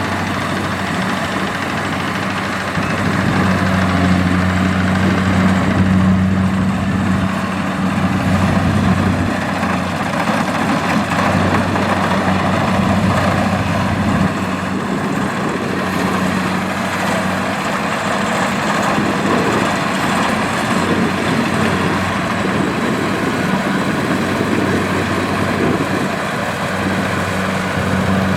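Kubota rice combine harvester's diesel engine running steadily at work, a continuous deep hum, slightly louder a few seconds in.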